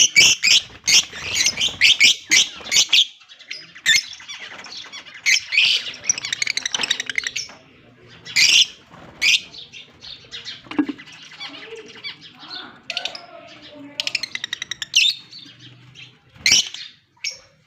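Fischer's lovebirds calling: many sharp, high squawks and chirps, some in quick chattering runs.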